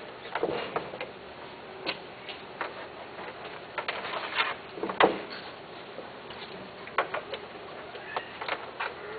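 Irregular light clicks and knocks from a cat moving about in a wire cage with a plastic base, the sharpest knock about halfway through.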